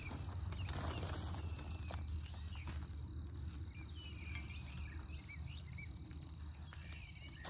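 Soft scraping and patter of potting mix as a metal scoop digs into the bag and pours into a pot. A steady low rumble lies underneath, with faint bird chirps and a faint steady high tone.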